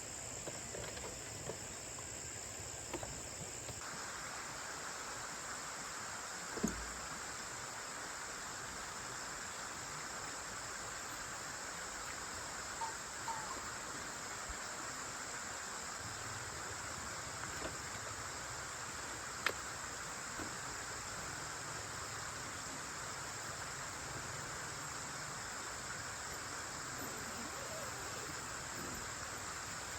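Night insects chirring steadily in a high, unbroken drone, with a couple of faint knocks along the way.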